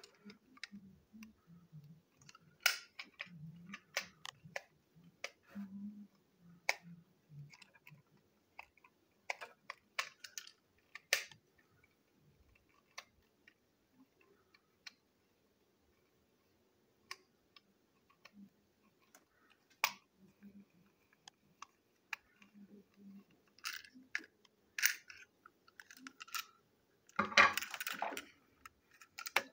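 Scattered clicks and knocks of a small plastic toy train wagon being handled and pried apart, with a longer rattling scrape of plastic parts near the end.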